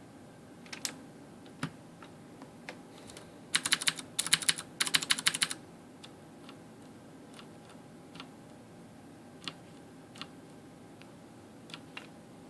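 Keys on a Ducky Shine 3 mechanical keyboard being pressed: scattered single key clicks, with a quick run of rapid keystrokes in two bursts a few seconds in, then a few faint presses.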